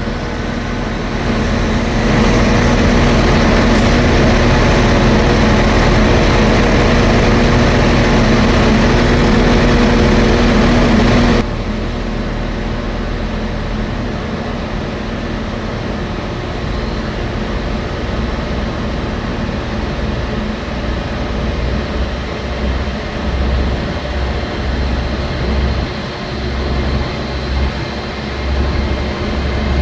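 A train's engine running with a steady hum that cuts off abruptly about eleven seconds in. A quieter, uneven low rumble follows.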